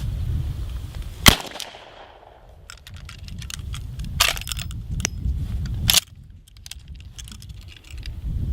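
A single loud gunshot about a second in, followed by several quieter sharp cracks and clicks a few seconds later.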